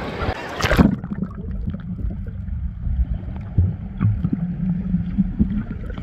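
A wave-pool wave crashes over the microphone a little under a second in. After that the sound is muffled from under the water: a low churning rumble with occasional small gurgles and bubbles.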